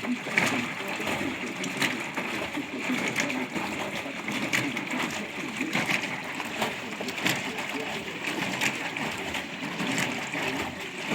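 Indesit IWTE 71280 washing machine running a wash: water splashing and sloshing in the turning drum, with irregular knocks.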